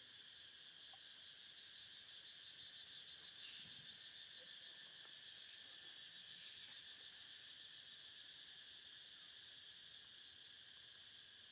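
Faint insect chorus: a steady high, shrill drone with a fast, even pulsing on top that fades out about three-quarters of the way through.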